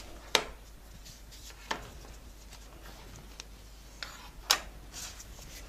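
Quiet handling noise of a plastic sugarcraft cutter and modelling paste on a work board: a few sharp, isolated taps, the loudest about four and a half seconds in, as the cutter is lifted and the cut paste peeled away.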